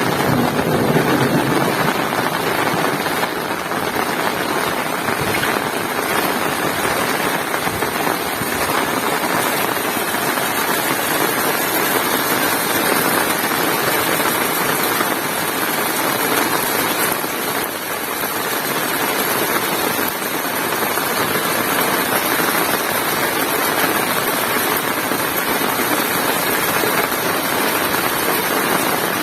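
Heavy rain pouring steadily, an even dense hiss of downpour.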